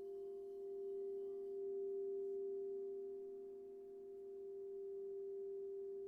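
Singing bowl ringing on with one steady tone and a few fainter overtones, its loudness slowly swelling and fading.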